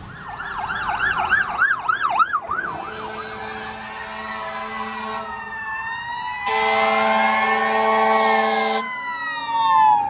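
Fire apparatus warning sirens: a fast electronic yelp for the first couple of seconds, then slow rising and falling wails. Past the middle comes a loud, steady air horn blast of about two seconds.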